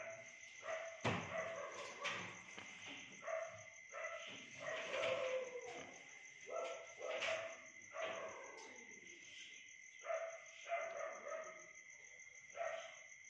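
Short animal calls repeated about once a second, with a few sharp clicks among them, over a faint steady high tone.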